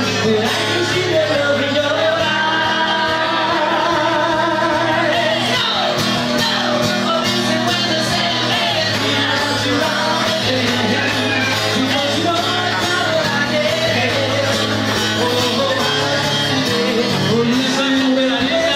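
Live solo vocal with acoustic guitar: a man sings a rockabilly song into a microphone while strumming steady chords on an acoustic guitar, in a small room that carries some reverberation.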